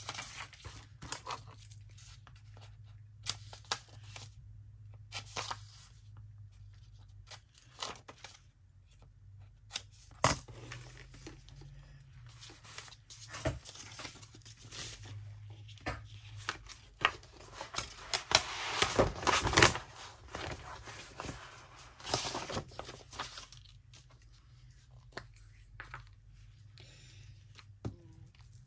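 Paper being handled while making a junk journal: scattered rustles, taps and crinkles, with a longer, louder stretch of paper noise about 18 seconds in.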